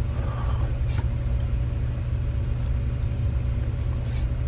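Steady low rumble with a faint steady hum above it on the soundtrack of 1994 videotape footage of the Flakey robot driving through an office corridor, with a couple of faint clicks, one about a second in and one near the end.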